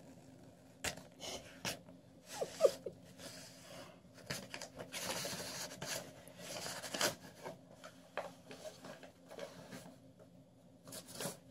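Paper rustling and scraping against the carpet and the door's edge in irregular bursts, with sharp clicks, as a cat paws at a piece of junk mail poked under the door. There is a brief squeak about two and a half seconds in.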